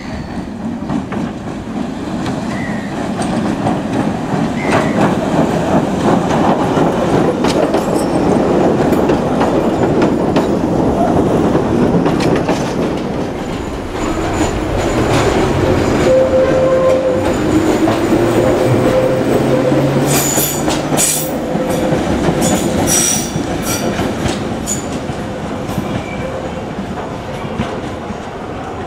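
An ex-London Underground 1938 Tube Stock electric train (Island Line Class 483) running on the rails with steady wheel-and-track rumble and clickety-clack. High-pitched wheel squeal cuts in and out about two-thirds of the way through as the train takes curved track.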